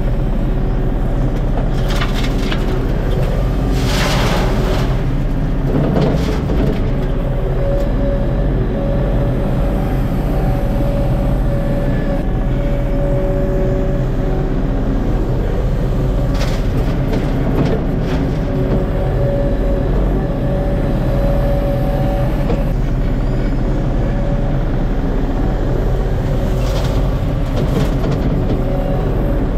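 ASV compact track loader's diesel engine running steadily under load, with a steady hydraulic whine as the bucket lifts. A few brief crashes of rock come as the bucket loads into a steel dump truck bed.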